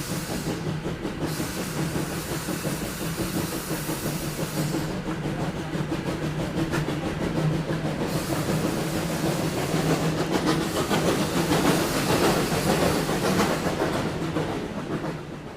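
Steam locomotive pulling away: steam hissing over a steady low drone, with a rapid rhythmic beat from the train. It grows louder toward the end and then fades out.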